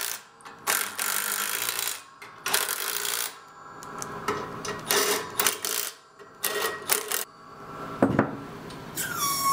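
Steel press-brake die pieces being handled and seated: repeated metal clinks and knocks with stretches of steel scraping and sliding over steel. About eight seconds in there is a heavy thud, and just before the end a steady high-pitched squeal starts.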